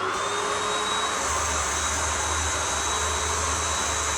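Russell Hobbs Athena Pet vacuum cleaner's motor running at full power with its intake sealed on a suction meter. It makes a high whine that finishes rising in pitch just after switch-on, then holds steady over rushing air, and a low hum joins about a second in. Some of the air leaks out through a vent on top of the cyclone, so this is not its full suction.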